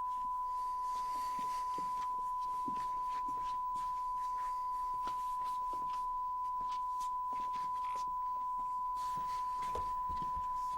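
A steady, unbroken electronic tone at one fixed pitch, like a test tone, with faint clicks and light knocks underneath it.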